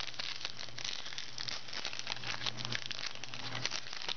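Trading cards being handled and flipped through, making a dense run of crinkling and small clicks over a steady low hum.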